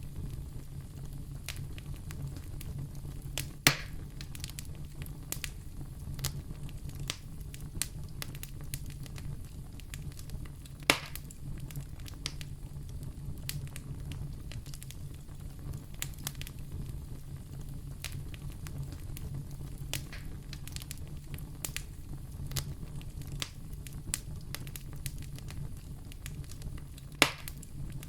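Wood fire burning in a fireplace, crackling steadily over a low rumble, with three louder sharp pops, one a few seconds in, one about midway and one near the end.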